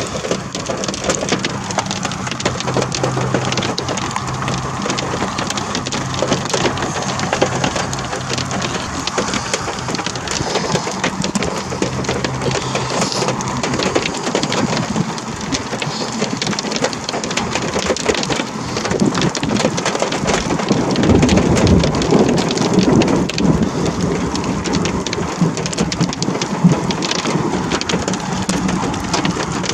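Heavy rain falling steadily in a thunderstorm, with a long deep rumble of thunder that swells about two-thirds of the way through.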